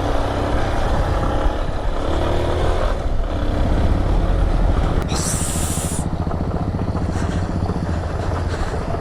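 Dual-sport motorcycle engine running steadily while riding, with wind noise over it. About five seconds in, a brief high hiss lasting about a second rises above it.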